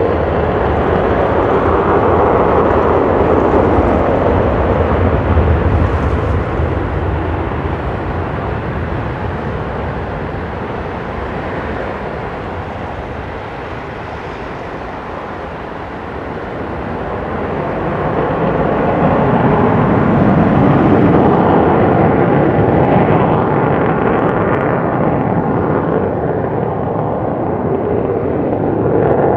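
Sukhoi Su-57 fighter's twin jet engines at takeoff power: a loud, steady jet roar that comes up sharply as the takeoff roll begins and eases as the jet lifts off. It swells again about two-thirds through as the climbing jet comes closest, then fades a little near the end.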